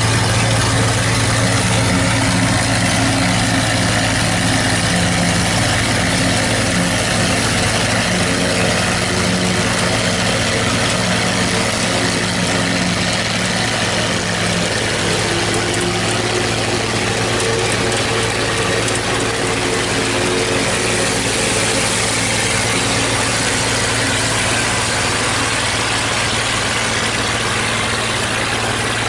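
New Idea 705 Uni System with its Uni Chopper forage harvester running steadily under load while cutting and chopping standing corn and blowing the silage into a forage wagon: a steady engine hum under the dense mechanical rush and clatter of the chopper.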